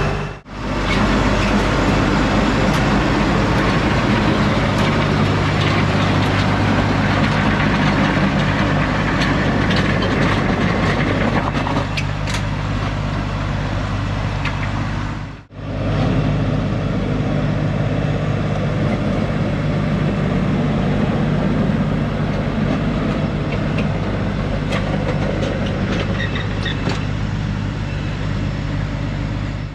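LS MT357 tractor's diesel engine running steadily under work, with a steady low hum. The sound drops out for a moment about halfway through and then resumes.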